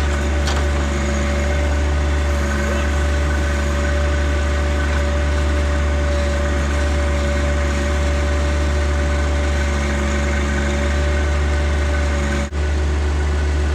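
John Deere tractor-backhoe engine running at a steady speed, with an even rumble and hum that drop out for an instant near the end.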